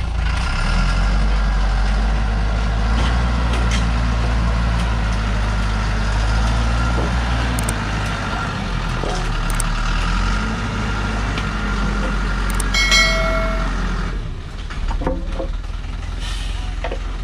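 Medium diesel cargo truck's engine labouring as the truck pulls across rough ground and up a dirt slope, a steady low drone. Near the end a brief shrill tone sounds, and about fourteen seconds in the engine note drops away.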